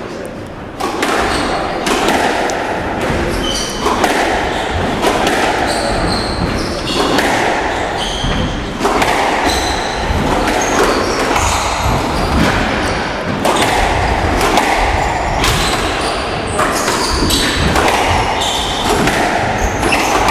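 A squash rally: the hard rubber ball cracking off rackets and the court walls again and again, with short high squeaks from players' court shoes on the wooden floor.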